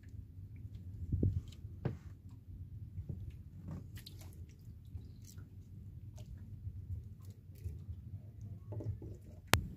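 Close handling of a fishing hook, line and bait: scattered small clicks, taps and wet squishing, with one sharp click near the end, over a low steady rumble.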